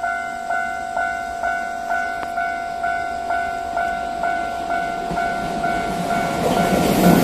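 Japanese railway level-crossing alarm ringing its repeated electronic ding, about two a second. Over the last second or so the noise of an approaching freight train swells and nearly covers it.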